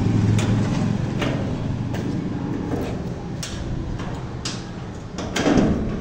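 A red steel gate being handled and opened: scattered sharp clicks and knocks, then a louder scraping swell about five seconds in. A low engine hum fades out in the first second.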